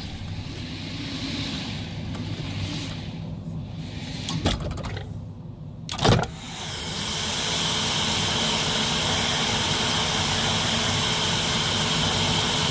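Sound effects from a radio feature's intro jingle. A shifting mechanical, engine-like noise is broken by a knock about four and a half seconds in and a louder knock about six seconds in, then gives way to a steady rushing noise with a faint hum.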